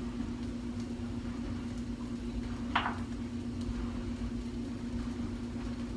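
Steady electric hum of a running kitchen appliance, with one short noise about three seconds in.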